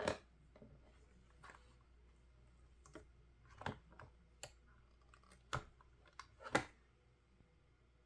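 Scattered light clicks and taps, about a dozen in irregular spacing, from small hard resin magnet pieces being handled and set down on a work surface.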